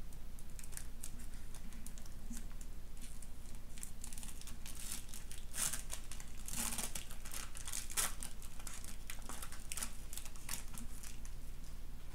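Foil booster-pack wrapper of Pokémon trading cards being torn open and crinkled by hand: a run of crisp crackling rustles, densest in the middle, with one sharp crackle about eight seconds in.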